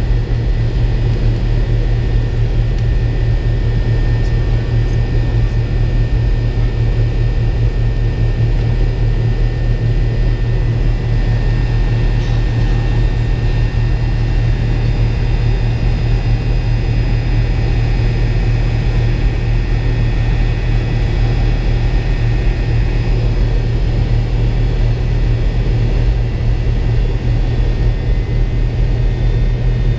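McDonnell Douglas MD-82's rear-mounted Pratt & Whitney JT8D turbofan running steadily at low taxi power before takeoff, heard inside the cabin right beside the engine: a constant low hum with several steady high whining tones over it.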